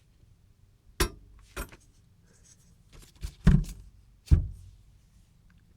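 A heavy metal power supply unit being handled on a workbench: five sharp knocks and clunks, the two loudest about three and a half and four seconds in.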